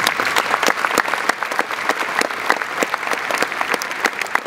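Large audience applauding, dense steady clapping of many hands.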